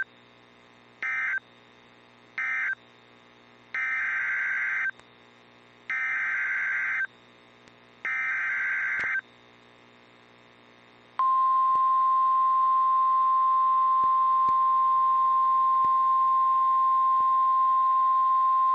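NOAA Weather Radio SAME alert data bursts. The last short end-of-message bursts come first, then three longer header bursts about a second apart that start the next warning, each a harsh digital warble. About eleven seconds in, the 1050 Hz warning alarm tone starts and holds steady at one pitch.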